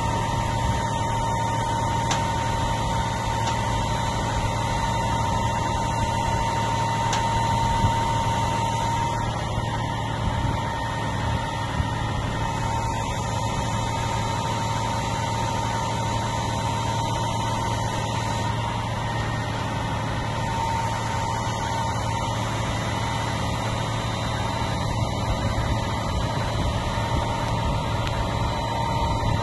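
Mobile crane's diesel engine running steadily at idle while it holds a suspended load, a constant low hum with a thin steady whine over it.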